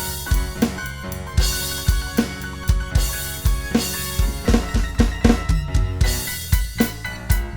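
Instrumental backing track: a drum kit keeping a steady beat over bass and other instruments.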